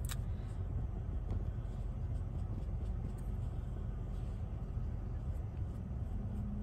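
Steady low rumble of a car's interior, with a sharp click at the very start and a few faint light touches as fingers work close to the microphone.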